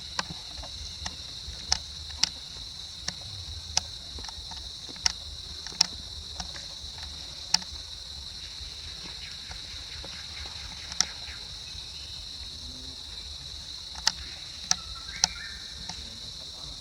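Steady, high-pitched drone of insects chirring, with sharp, irregular clicks or snaps on top, about fifteen in all, bunched in the first eight seconds and again near the end.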